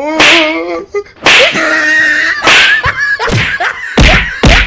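Fight slaps and punches: about six sharp smacks, roughly one a second, with wordless yells and cries between them, the last two landing as heavy thuds.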